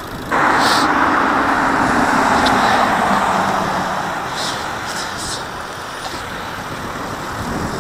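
Road traffic noise as a car passes close by. It starts abruptly just after the start and eases off after about four seconds.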